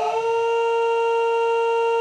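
A crying voice digitally frozen and looped into one flat, buzzing tone that sounds like a car horn, held without a break.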